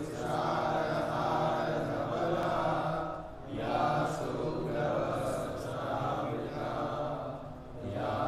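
Chanting of a mantra: long held vocal phrases, with a short break about three and a half seconds in and another near the end.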